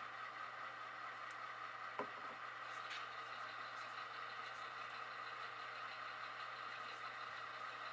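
Faint, steady idling of HO-scale model diesel locomotives' onboard sound, with a single light click about two seconds in.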